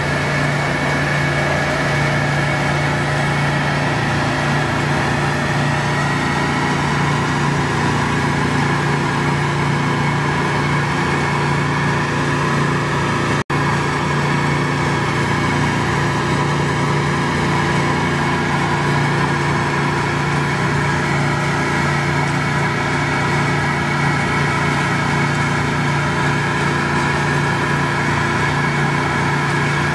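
Steady running hum of a ThawRig's equipment: its Honda small engine together with the vacuum tank system, unchanging, with a split-second cut-out about halfway through.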